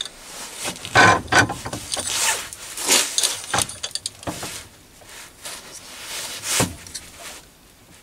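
Light knocks, clicks and scrapes of metal on metal as a small brass plate and aluminium angle pieces are handled and set in the jaws of a bench vise, with a sharper knock a little past six and a half seconds in.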